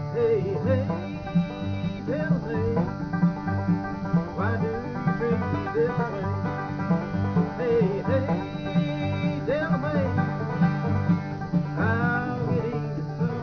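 Bluegrass trio of banjo, mandolin and acoustic guitar playing together, with a steady beat in the low notes.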